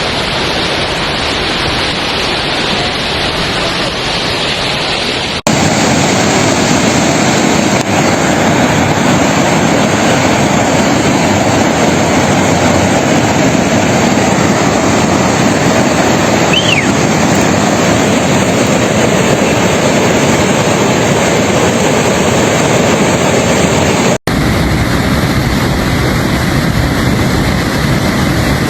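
Steady, loud rush of fast-flowing floodwater, changing abruptly twice as the footage cuts between clips, about five seconds in and again about four seconds before the end.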